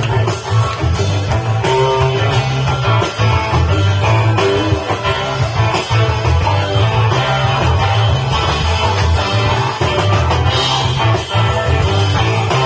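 Live rock band playing an instrumental passage: electric guitars over a loud bass line and drum kit.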